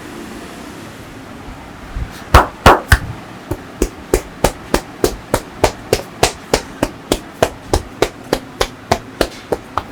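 Sharp hand slaps of a percussive massage. A few loud strikes come about two seconds in, then a steady run of about three slaps a second.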